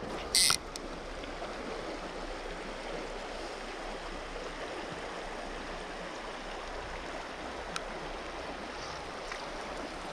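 Creek water running steadily over its bed. A brief, loud hiss about half a second in.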